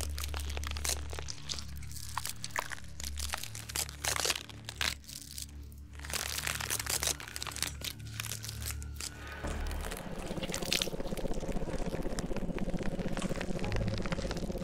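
Film sound design for a slime creature: wet crackling and crunching over a deep, steady drone. About two-thirds of the way through, the drone stops and a denser, even crackling hiss takes over.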